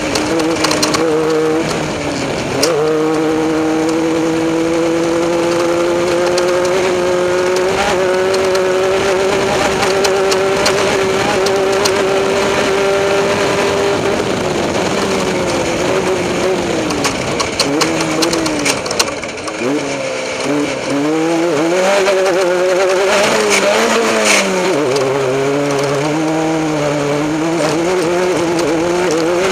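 Off-road race vehicle's engine running hard at speed. Its pitch climbs steadily for about ten seconds, then rises and falls with throttle changes, over scattered knocks and rattles.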